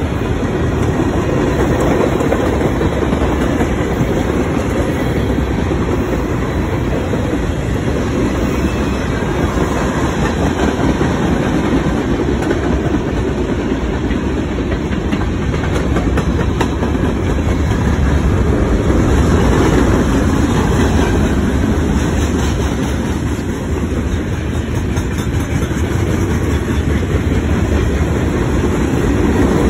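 Freight cars of a Norfolk Southern mixed freight train, tank cars and autoracks, rolling past steadily: a constant rumble of steel wheels on rail with clickety-clack over the rail joints.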